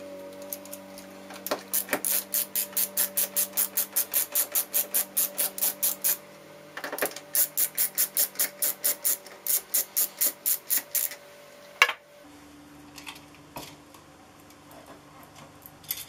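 Screwdriver backing out the mounting screws of a wall switch: quick, even metallic clicking about five times a second in two long runs, then a single sharper click near the end.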